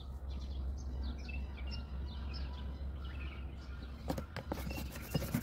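Small birds chirping over a steady low background rumble. A few knocks and scrapes come near the end, from a spatula working stiff bread dough in a plastic tub.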